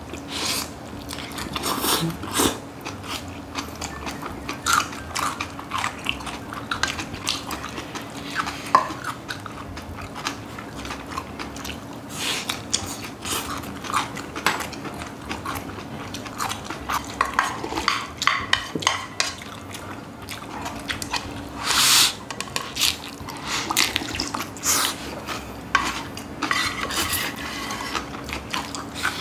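Wooden spoons and chopsticks clinking and scraping against a metal pan and glass bowls, with chewing of mixed rice. A steady low hum runs underneath.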